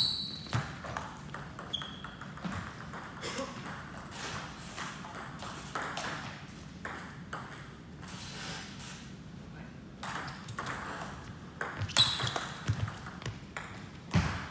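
Table tennis ball clicking off rubber paddles and the table. A loud hit with a brief ringing ping comes right at the start, quieter scattered taps follow, and a quick run of sharp hits comes about twelve seconds in.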